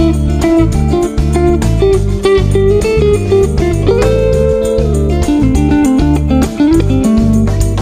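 Electric guitar playing a single-note lead line through an Effectrode PC-2A photo-optical tube compressor pedal, over a low bass backing.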